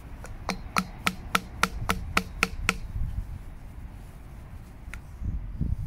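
About ten hammer taps, about four a second and each with a short ringing note, stopping under three seconds in, then one lighter tap near the end. The taps drive a new fork oil seal into a 2008 Honda Deauville fork leg with the old seal laid on top as a drift, in place of a seal driver; the seal is going in, but slowly.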